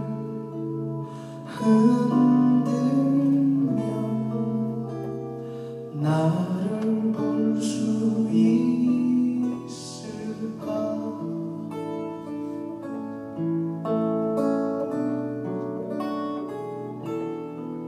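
A man singing a slow song, accompanied by acoustic guitar and keyboard.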